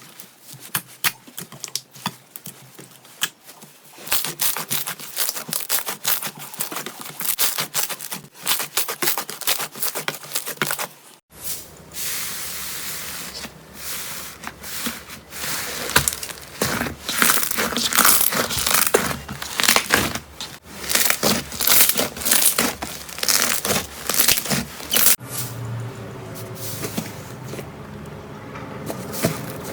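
Slime being squeezed, poked and stretched by hand, making dense crackling and clicking pops with sticky tearing sounds. The texture of the sound changes abruptly twice, as one slime clip gives way to the next.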